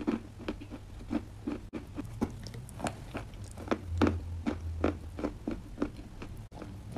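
Close-miked chewing of a crunchy chocolate-glazed bar, a steady run of short, crackly crunches about three a second, with the sound dropping out for an instant twice.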